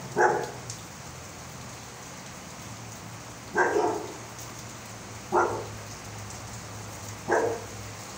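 A dog barking four single barks a couple of seconds apart, over a steady patter of falling rain.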